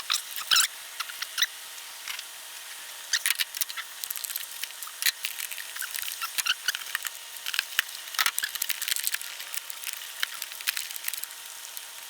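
Socket wrench on a 10 mm deep socket clicking and knocking irregularly as a glow plug is worked loose from the warmed-up diesel engine, over a faint steady hum.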